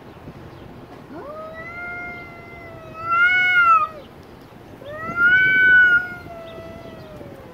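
Two long, drawn-out cat yowls in a face-off between two cats, the threatening caterwaul of a territorial standoff. The first builds slowly and swells loud about three seconds in. The second swells about five seconds in and trails off falling.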